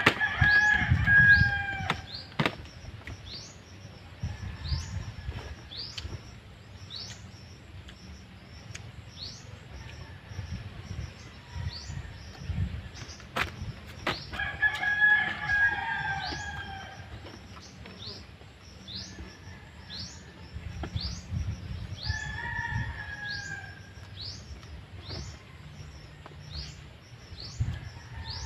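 A rooster crowing three times, each crow about two seconds long: near the start, about halfway through and again a few seconds later. Short high chirps repeat about once a second throughout.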